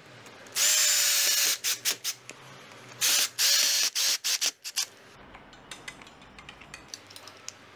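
Cordless drill-driver driving a screw through a metal shelf bracket into the wall, in short runs: about a second of steady motor near the start, a few quick blips, then two more runs around three seconds in, followed by scattered light clicks.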